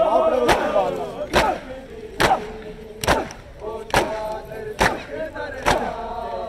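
Men beating their chests in unison in Shia matam mourning, a heavy slap a little more often than once a second, about seven in all. Between the strikes the group chants a lament.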